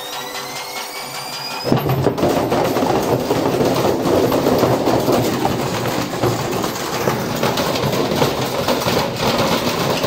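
Indesit washing machine's motor whining and rising in pitch as the drum spins up with a heavy brick inside; a little under two seconds in it breaks into loud, continuous banging and rattling as the brick batters the drum and the machine shakes its own casing apart.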